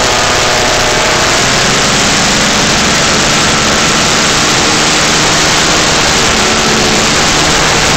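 Arctic Cat 340 two-stroke snowmobile engine in a golf cart, running steadily as the cart drives, under a loud, even rush of noise.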